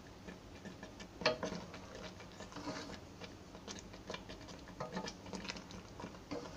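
Wooden spatula stirring thickening mango jam in a non-stick pan: irregular light clicks and scrapes of the spatula against the pan through the sticky syrup, the loudest about a second in.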